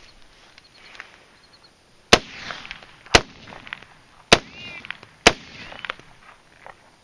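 AR-15 rifle in 5.56 mm, its action packed with mud, firing four aimed semi-automatic shots about a second apart, each shot trailing off in a short echo. The rifle fires and cycles each round despite the mud.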